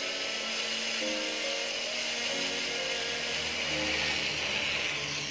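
Background music over the steady high hiss of a small rotary tool's cutting disc grinding into a steel fishing hook to cut its barb. The hiss grows louder about four seconds in.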